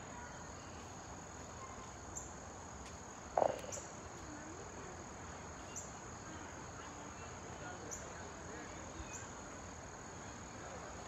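A steady, high-pitched insect trill, typical of crickets, over a quiet background, with one brief louder call-like sound about three and a half seconds in.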